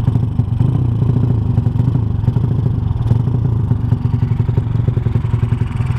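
Honda Supra's single-cylinder four-stroke engine, bored up to 200cc, running under way through a CJDW aftermarket exhaust with a steady, rapid exhaust beat.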